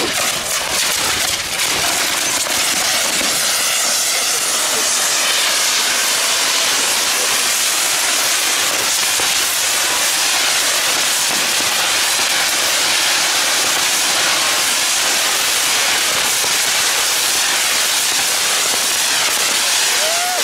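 Ground fireworks burning: a spark fountain, then a star-shaped lancework figure with fountains firing inside it. They give a loud, steady hiss with fine crackle.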